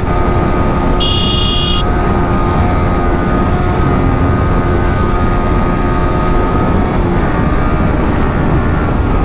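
Motorcycle engine running at steady high revs at highway speed, with heavy wind noise on the microphone. A brief high-pitched tone sounds about a second in.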